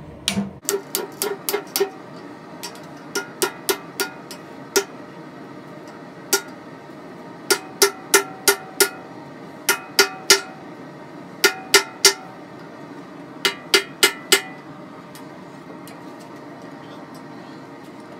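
Hand hammer striking red-hot coil-spring steel on an anvil, blows coming in short clusters of two to four with pauses between, each with a metallic ring. The bar is being hammered straight as the first forging step, and the blows stop for the last few seconds.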